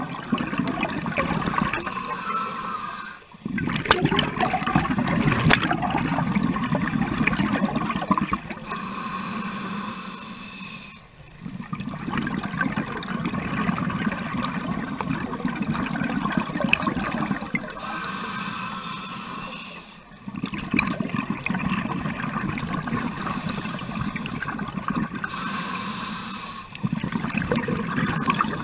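Scuba diver breathing through a regulator underwater: a short hissing inhale followed by a longer rush of exhaled bubbles, repeating about every eight seconds, four breaths in all.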